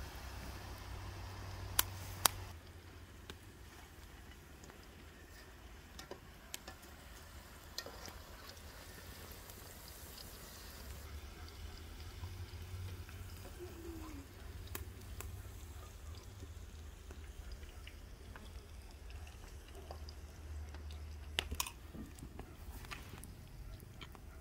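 Hot frying oil sizzling faintly in a steel pan over a wood fire, with scattered sharp crackles and pops, two of them close together about two seconds in.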